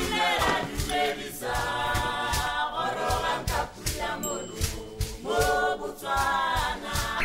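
Opening theme music: a choir singing in harmony in long, swelling phrases over a steady beat.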